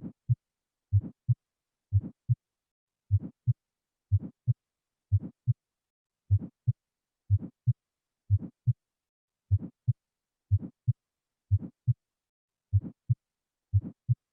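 Heart sounds from an auscultation recording: a steady lub-dub, a low first sound followed about a third of a second later by a second sound, repeating a little under once a second (roughly 57 beats a minute), with silence between beats.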